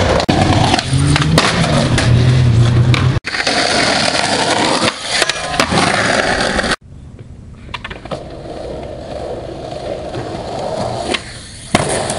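Skateboard wheels rolling on concrete, with sharp clacks from the board popping and landing tricks. The sound cuts abruptly twice between clips, and the last part is quieter.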